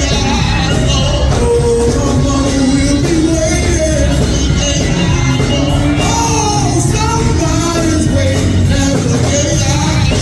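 Live gospel music in a church: voices singing over a band, with a strong bass and drum beat.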